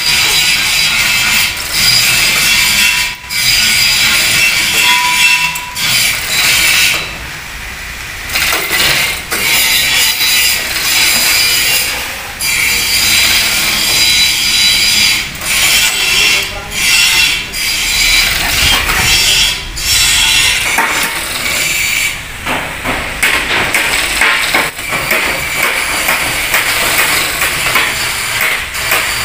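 Manual chain hoist being hauled by its hand chain: the steel chain rattles and clatters through the hoist with a ratcheting click, in spells broken by short pauses.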